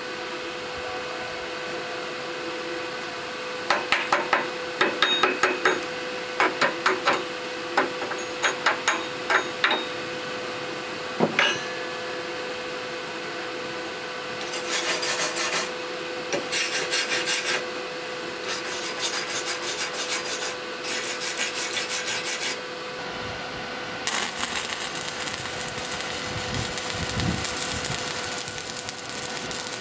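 Chipping hammer tapping repeatedly on steel tack welds, knocking off the slag. Then a wire brush scrubs the welds in several short bursts. Near the end an arc welder starts up, crackling steadily as it welds the joints of the steel angle-iron frame.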